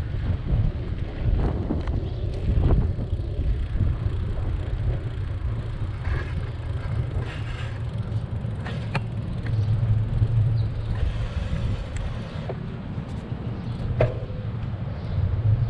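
Steady low rumble from riding a bicycle, tyre and wind noise on the camera, with a couple of sharp clicks partway through.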